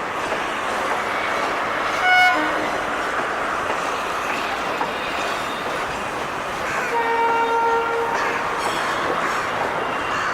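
Steady running noise of a passing train on the rails. The locomotive's horn sounds with a short blast about two seconds in, and again for about a second around seven seconds in.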